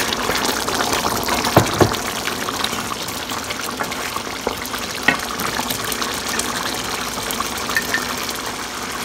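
Chicken stew simmering and bubbling in a large nonstick pan while a wooden spoon stirs it. The spoon knocks against the pan twice about one and a half seconds in, and once more about five seconds in.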